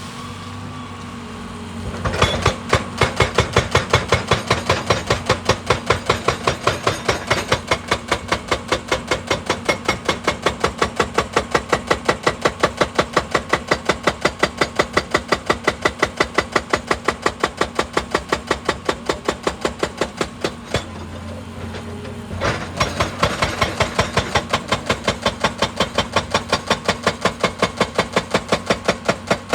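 Hydraulic rock breaker on an excavator hammering rock in rapid, evenly spaced blows over the machine's diesel engine hum. It starts about two seconds in, stops briefly about two-thirds of the way through, then starts again.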